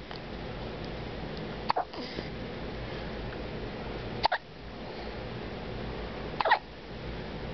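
Newborn baby hiccuping: three short, sharp hiccups, about two and a half seconds apart.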